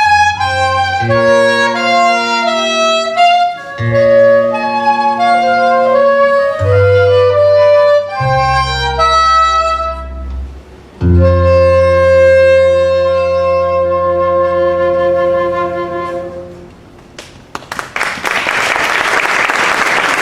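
A small live instrumental ensemble plays a piece over low sustained bass notes and closes on a long held chord that fades away. Audience applause breaks out near the end.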